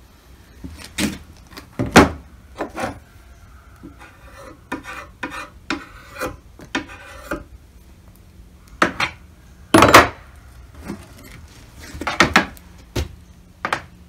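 Chainsaw guide bar and loose saw chain being handled and set down on a plastic table: irregular clanks and knocks, with scraping and rubbing between them, as the bar is turned over.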